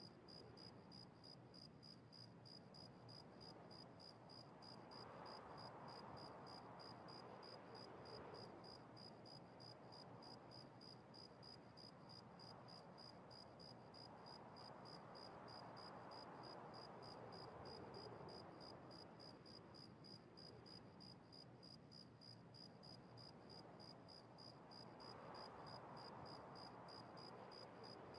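Near silence: faint room hiss with a thin, high-pitched tick repeating about four times a second, and slow, soft swells of hiss every ten seconds or so.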